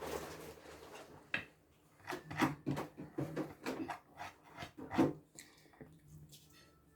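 A run of short knocks, scrapes and rubs of tableware and other things being handled at a meal table, irregular and busiest in the middle stretch.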